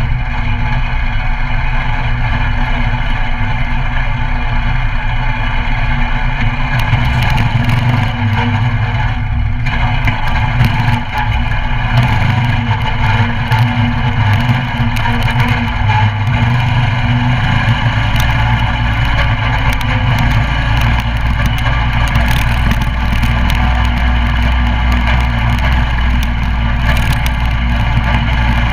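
Coleman CT200U mini bike's 196cc single-cylinder engine running steadily as the bike is ridden, heard close. From about seven seconds in, many short knocks and rattles sit over the engine.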